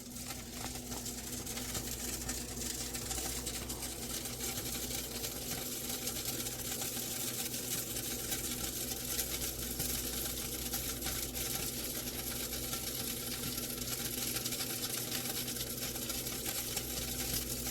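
Toaster oven running with burgers cooking inside: a steady electrical hum under a fine, continuous crackling sizzle.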